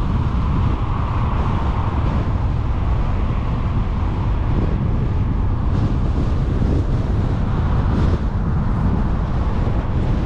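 A car driving: steady low road and tyre rumble mixed with wind rushing over the microphone.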